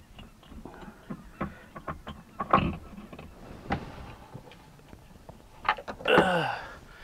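Scattered clicks, knocks and scrapes of a hand working the oil filter loose and out of a Kawasaki STX-15F jet ski's engine bay, with a louder knock about two and a half seconds in and another about a second later. Near the end comes a short, loud, pitched sound that falls in pitch.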